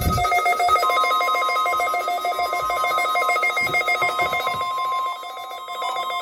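NOAA Weather Radio warning alarm tone: a rapid, pulsing electronic warble, then about a second in a single steady high tone of about 1050 Hz comes in and holds. It is the alarm tone sounded for the weekly test of the Weather Radio warning alarm system.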